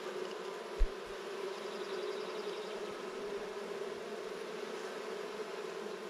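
A swarm of honeybees humming steadily while it is being hived into a small wooden box. A single low thump comes about a second in.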